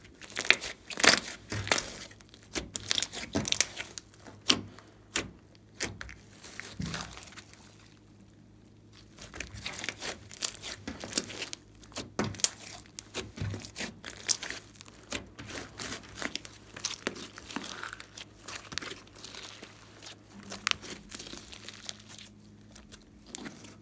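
Hands kneading and stretching a large glossy slime: sticky squelching with rapid crackles, clicks and pops as air pockets burst. It stops briefly about eight seconds in, then carries on.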